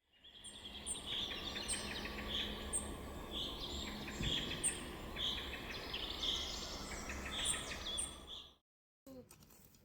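Several birds singing and calling outdoors, one repeating a short high call about once a second over busier chirps and trills. The birdsong cuts off abruptly near the end.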